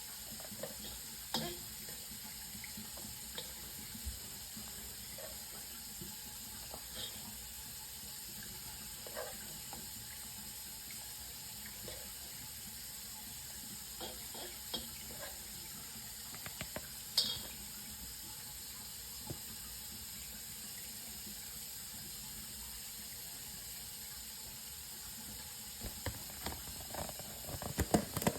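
Kitchen tap running steadily into a sink, with scattered light clinks and knocks. A burst of dish clatter comes near the end.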